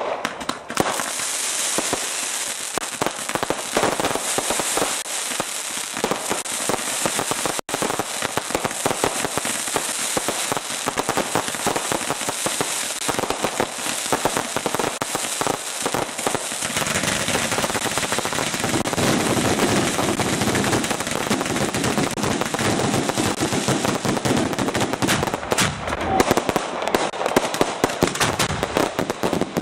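Fireworks display going off in a dense, continuous barrage of rapid bangs and crackle, with a fuller, deeper layer of reports joining in from about halfway through.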